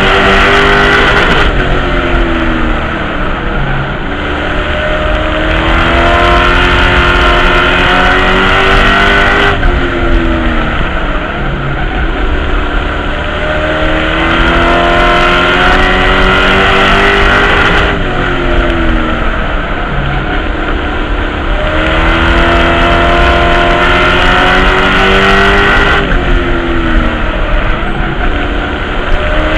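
Race truck's engine at racing speed heard from inside the cockpit. The engine note falls as the driver lifts for each turn and climbs again on the straights, about every eight seconds.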